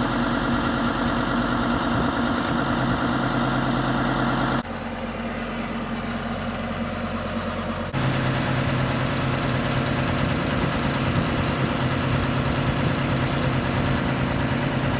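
Diesel tractor engine running steadily, its note and loudness changing abruptly about four and a half seconds in and again about eight seconds in.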